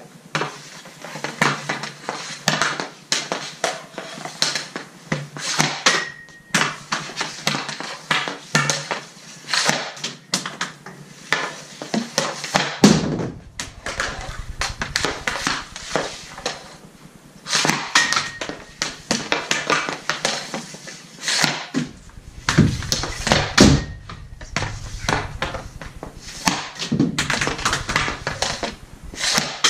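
Hockey sticks and pucks on a synthetic ice surface: a dense run of sharp clacks and knocks from stickhandling and shots, with pucks thudding into the boards. Twice a short ring, as of a puck striking the metal goal post.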